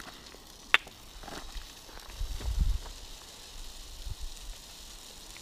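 Liquid drain cleaner poured from a small plastic bottle through a plastic funnel into a PET bottle, a faint hiss. There is a sharp click about three-quarters of a second in and a low rumble a little past two seconds.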